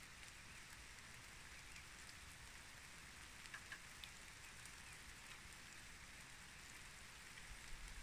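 Light rain falling steadily: a faint, even hiss with a few scattered drop ticks.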